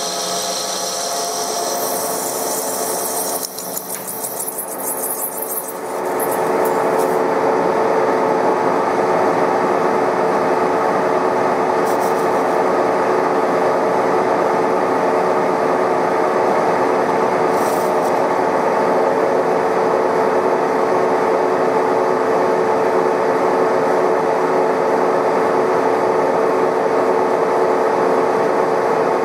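TOS SN63B metal lathe taking a heavy roughing cut on a wheel hub with an insert tool: a steady cutting noise over the hum of the running lathe. About six seconds in the sound dips briefly, then turns louder and steadier for the rest.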